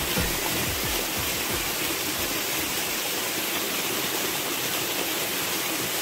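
Waterfall pouring down a rock face, a steady rushing of falling and splashing water.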